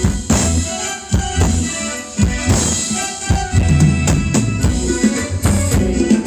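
Thai luk thung band music with a drum-kit beat of bass drum and snare.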